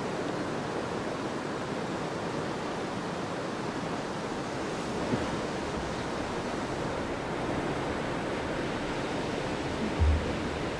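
Steady rushing noise with no tones in it, with a brief low thump near the end.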